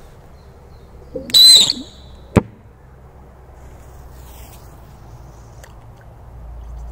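GM1 firecracker going off in bog water: a loud, shrill half-second burst about a second in, then a single sharp crack.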